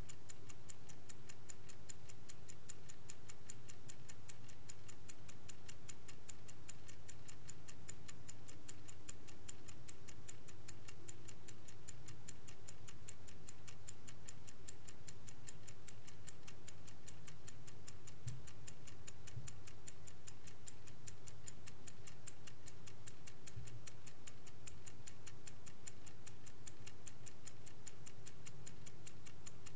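Vintage Swiss-made Angelus clock ticking, a rapid, perfectly even run of ticks, over a faint steady low hum.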